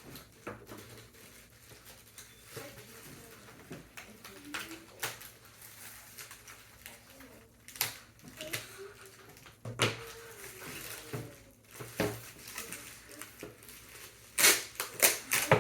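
Packing material and model parts being handled during unpacking: scattered rustles and light clicks, then a quick run of louder scrapes and knocks near the end.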